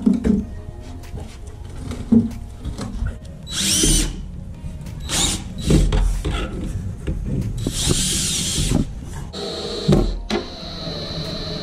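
DeWalt cordless drill running in short bursts as it works through the steel angle iron on the edge of a plywood box, with knocks in between. A longer steady whine starts about two seconds before the end.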